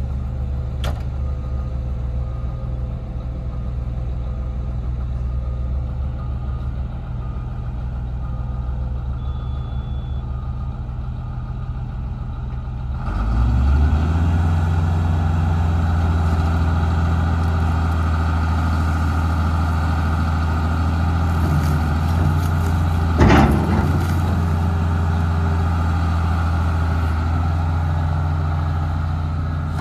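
Cat 330B excavator's diesel engine idling low, then about 13 seconds in throttled up to a steady higher, louder speed. A single sharp knock sounds partway through the higher-speed running.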